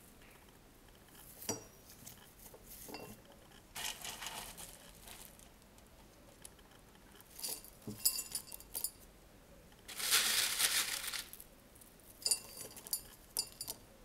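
Chunky orchid potting mix being worked into a terracotta pot by gloved hands: scattered light clinks and taps of hard pieces against the pot. Handling rustles come through too, with a longer, louder rustle about ten seconds in.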